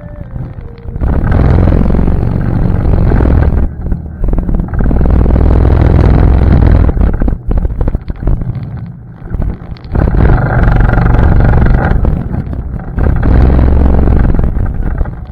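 ATV engine running under a rider, loud for long stretches with two easings of throttle, about four seconds in and again around eight to ten seconds in.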